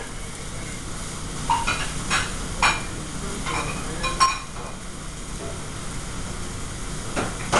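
Busy restaurant kitchen line: a steady hiss of food frying on the stove under a running exhaust hood, with about five sharp clinks and clatters of metal pans and utensils in the first half.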